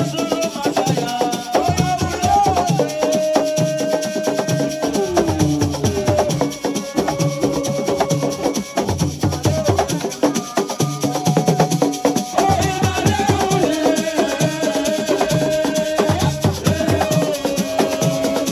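Senegalese assiko music played live: dense drumming with rattles and shakers under held, gliding singing voices.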